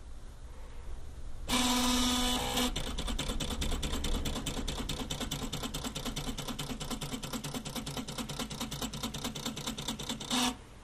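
Homemade CD-drive dot matrix printer at work: a CD drive sled's stepper motor buzzes with a steady tone for about a second, then fast, even ticking of several strokes a second as the pen mechanism taps out dots, ending with a short buzz near the end.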